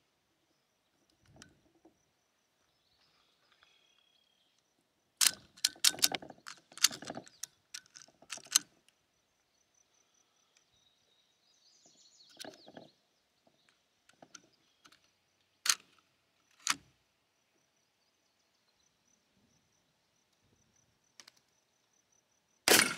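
Mauser C96 (Broomhandle) pistol being loaded: a quick run of metallic clicks about five to nine seconds in as cartridges are thumbed down from a stripper clip into the fixed magazine. Two sharp clicks from the action follow about halfway through. Near the end comes a single loud gunshot from the test fire.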